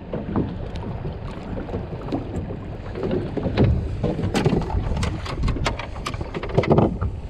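Wind rumbling on the microphone aboard a small boat at sea, with a run of sharp clicks and taps from hands rigging a live bait fish on a hook, thickest in the second half.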